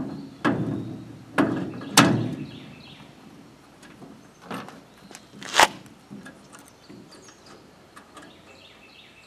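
A solid flat-free cart wheel with a plastic hub being worked onto the end of a steel cart axle: several clunks and knocks in the first two seconds, a single sharp knock about five and a half seconds in, then a few light taps.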